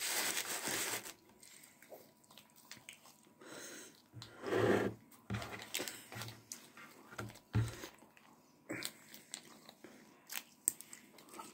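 A small plastic sauce sachet crinkling and clicking as it is picked at with the fingers and bitten at, with chewing mixed in; the sachet will not tear open.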